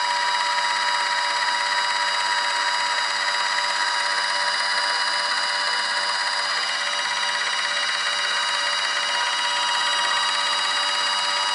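Motorised disc repair machine running, spinning and buffing a scratched CD: a steady, even whine with a rubbing hiss that does not change.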